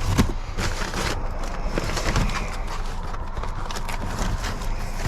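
Plastic food packages being rummaged through and handled in a dumpster: a continuous rustle with many irregular clicks and cracks.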